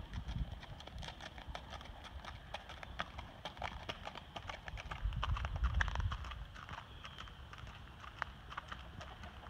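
Hooves of a gaited Tennessee Walking/Spotted Saddle Horse gelding being ridden over gravel, a quick even run of clip-clops. A low rumble for about a second halfway through.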